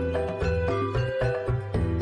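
Background music: a melody of held notes over a pulsing bass line.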